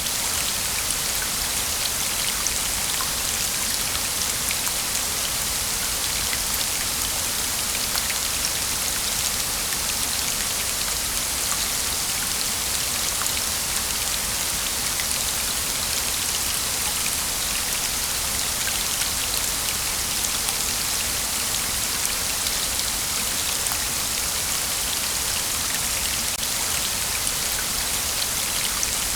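Waterfall: a steady hiss of falling water with scattered splashing drops, even and unchanging throughout.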